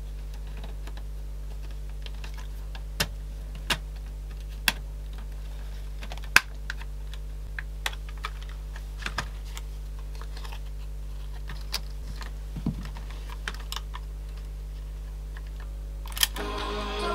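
Scattered small plastic clicks and taps as the casing and end plate of a Sanyo M-G95 cassette Walkman are fitted back together. Near the end a sharper click, and tape playback starts from the Walkman.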